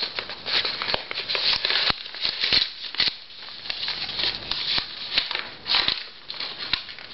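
Paper rustling and crinkling in quick, irregular bursts with small clicks and tears, as a mailed envelope is opened by hand.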